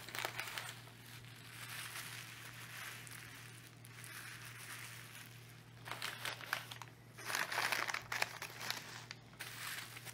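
Plastic bubble wrap and packing paper crinkling and rustling as bubble-wrapped parts are handled and lifted out of a padded case, louder between about six and eight seconds in.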